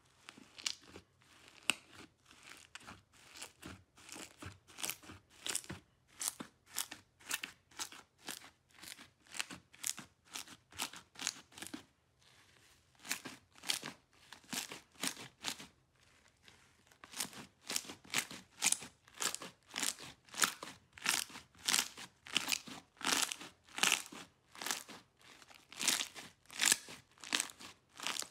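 Green and yellow fluffy slime being pressed, stretched and kneaded by hand, giving a rhythmic series of short squishing sounds about twice a second, with a brief pause near the middle.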